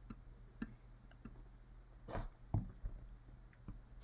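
Faint clicks and taps of a stylus on a drawing tablet during on-screen handwriting, with a short rustle and a soft thump about halfway through, over a low steady hum.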